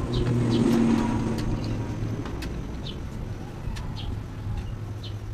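A motor vehicle engine running with a steady low hum, louder in the first second and a half. Scattered light clicks and faint high chirps sit over it.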